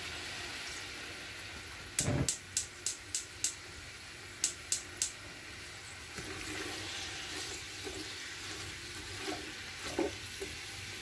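Sliced onions sizzling steadily in oil in a metal pot over a high flame, the first stage of frying them toward golden brown. A wooden spoon stirs them, knocking against the pot in a quick run of sharp clicks about two seconds in and a few more around four and a half seconds in.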